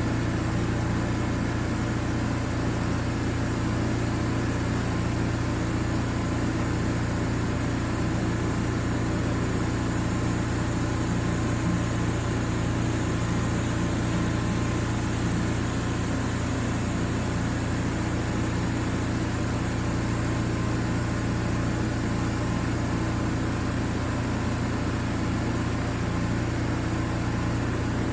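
Gas engine of a pressure washer running at a constant speed, a steady hum with an even hiss over it.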